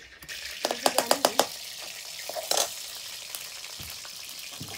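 Food sizzling in hot oil in a metal wok, the hiss starting suddenly just after the start. A metal ladle knocks sharply against the pan about six times in quick succession about a second in, and once more midway.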